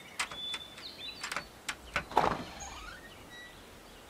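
Wooden cabin door being handled and opened: a few sharp clicks and knocks, then a louder knock a little past halfway followed by a rising creak as the door swings. Birds chirp faintly in the background.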